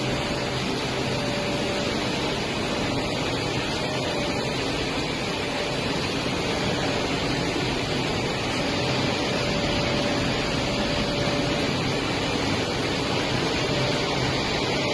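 Drum-type vial glass bottle washing machine running, giving a steady noise with a faint hum that comes and goes.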